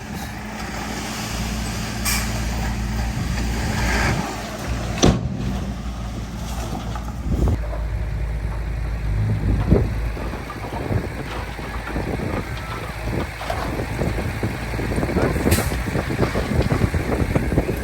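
Heavy diesel earthmoving machinery running steadily, with scattered clanks and knocks. The clatter grows busier in the second half.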